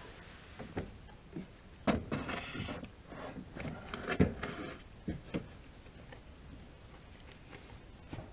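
Handling noises as an air rifle is put away: a knock and a stretch of scraping rustle about two seconds in, a sharper knock about four seconds in, then a couple of light bumps.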